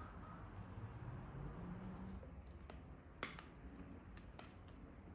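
Crickets chirping in a steady, high-pitched chorus, with a single light click about three seconds in.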